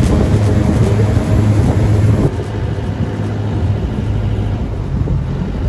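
Motorboat engine running steadily with water rushing past the hull. About two seconds in, the rush fades and the engine quietens a little as the boat slows.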